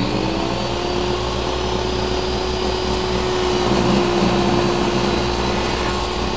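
Table saw running at a steady pitch while a block of hard wood is fed slowly into the circular blade and cut to length.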